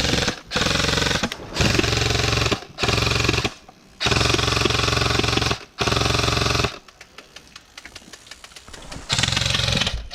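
Airsoft electric rifle firing on full auto in repeated bursts, half a second to a second and a half each, with a stretch of scattered quieter ticks in the middle before a last burst near the end.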